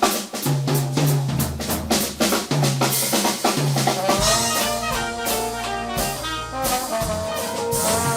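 Upbeat background music: a drum kit keeping a steady beat, with brass horns playing a melody from about halfway through.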